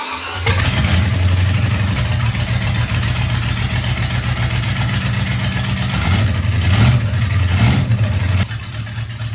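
MerCruiser 5.7 L 350 Magnum V8 marine engine running after catching about half a second in. It is blipped a couple of times past the middle, then settles back to a lower idle near the end.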